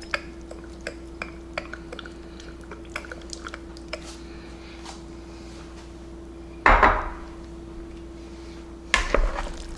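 Kitchen clatter of dishes and utensils: scattered light clicks and clinks, then two louder knocks about seven and nine seconds in, over a steady hum.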